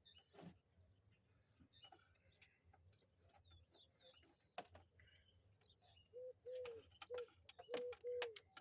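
A dove cooing: a run of short, low coos in quick groups over the last couple of seconds. Before it, only faint scattered clicks and taps.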